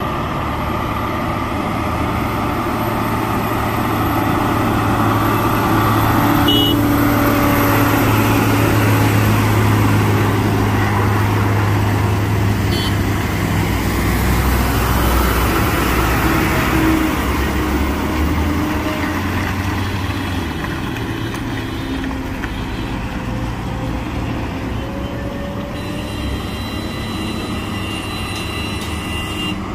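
Road traffic rounding a hairpin bend: heavy truck and other vehicle engines running as they pass, with a steady low hum that swells about a fifth of the way in and again past the middle. Two short high beeps sound, about a fifth of the way in and near the middle.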